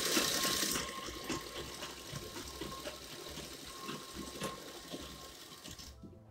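Motor-driven domestic sewing machine running and stitching through cotton fabric, loudest at first, then slowing and fading until it stops near the end.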